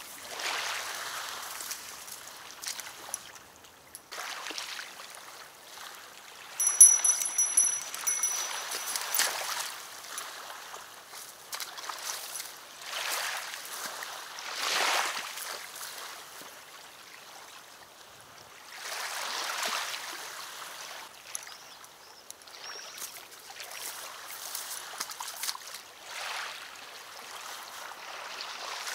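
River water lapping and splashing at the shore, swelling and fading every few seconds. About seven seconds in, a short, high, thin ringing tone sounds for a couple of seconds.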